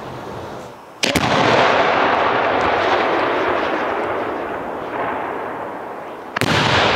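Two large aerial fireworks shells bursting, about a second in and again near the end, each a sharp boom followed by a long rolling rumble that slowly fades.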